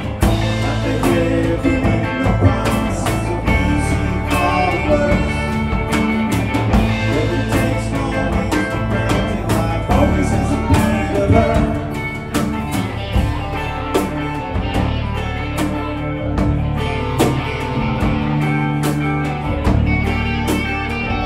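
A live alt-country rock band playing a song at a steady beat: electric guitars, acoustic guitar, bass guitar and a drum kit, with some singing.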